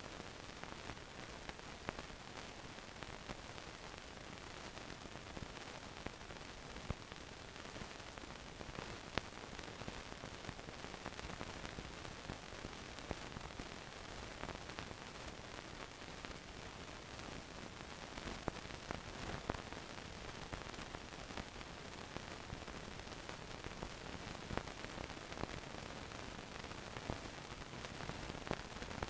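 Steady hiss with scattered clicks and crackles: the surface noise of an old film soundtrack with no programme sound on it.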